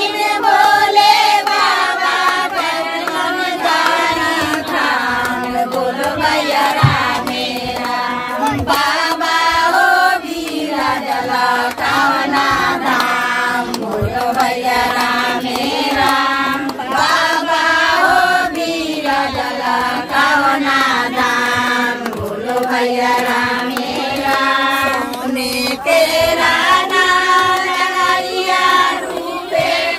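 A group of women singing a song together in chorus, voices rising and falling without a break.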